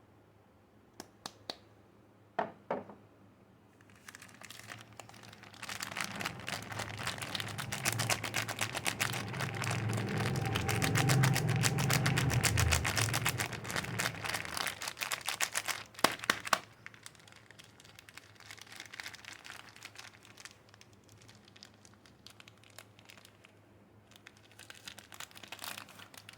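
Soap packaging being unwrapped by hand, the wrapper crinkling. A few sharp clicks come first, then dense crinkling builds from about six seconds in and is loudest near the middle. A couple of sharp snaps follow, then lighter, sparser crinkling.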